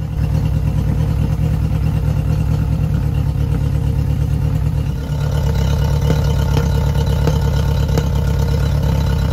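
Yamaha F50TLRB 50 hp four-cylinder carbureted four-stroke outboard idling from a stone-cold start, with an audible stumble in its running. With plugs and ignition already ruled out, the owner traces the stumble to fuel delivery in the carburetors.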